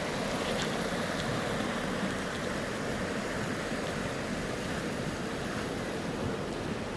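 Steady rushing of running water, a flowing stream, with a few faint ticks over it.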